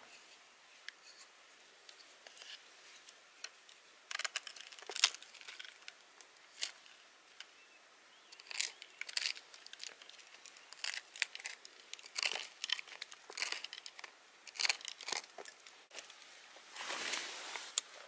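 Flat wooden stick scraping resin off tree bark in short, irregular scratching strokes. Near the end, a longer scratchy rustle and a sharp click.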